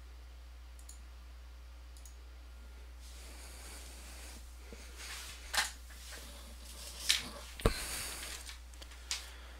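Four sharp clicks with light rustling handling noise in between, over a steady low hum; the loudest click comes about three-quarters of the way through.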